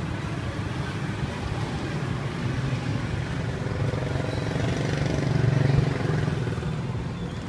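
Street traffic with a motor vehicle engine running. The engine grows louder to a peak about five to six seconds in, then fades as it passes.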